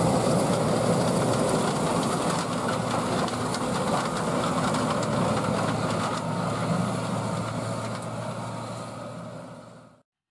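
Heavy farm machinery running steadily, a deep engine hum with mechanical clatter, fading out near the end.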